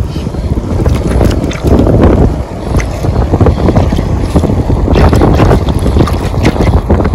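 Wind buffeting the microphone over shallow surf washing across wet sand, with splashes from a hand digging in the water.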